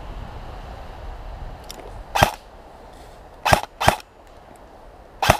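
Airsoft rifle firing four single shots as sharp cracks close to the microphone: one, then a quick pair about a second later, then one more near the end.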